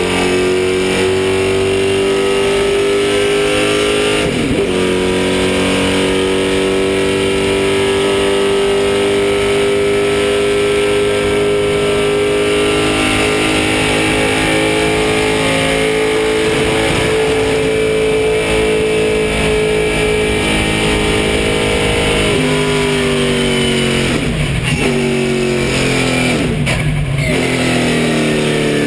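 Race car engine heard from inside the cockpit, held at a steady high note that climbs slowly under full throttle. Near the end the note steps down and dips and recovers several times as the car shifts down.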